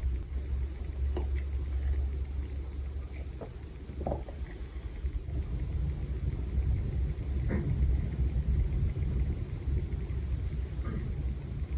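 Steady low rumble, with a few faint short sounds rising above it now and then.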